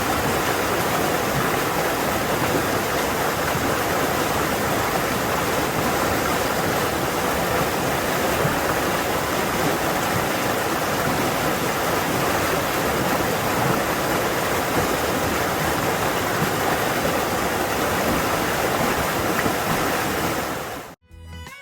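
Fast-flowing forest stream making a loud, steady rushing of water, which cuts off suddenly near the end.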